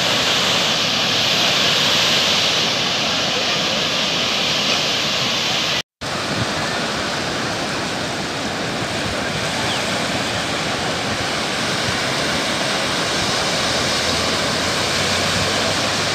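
Surf breaking and washing up a sandy beach: a steady, loud rush of waves, broken by a split-second silence about six seconds in.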